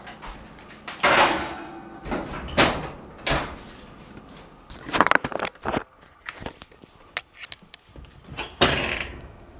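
A kitchen oven door being worked: a string of knocks and clatters, with longer rushing sounds about a second in and again near the end.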